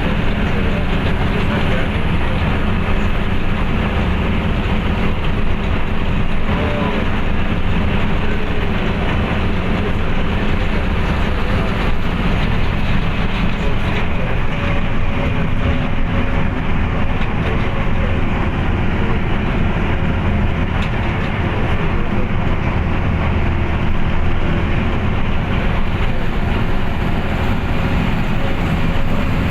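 Truck driving at steady speed: a continuous low engine drone under steady road and wind noise.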